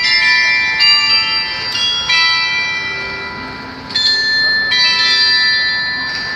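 Tuned time-signal bells ringing out a slow melody to mark one o'clock, about five struck notes of different pitches, each ringing on and overlapping the next. The last notes fade away near the end.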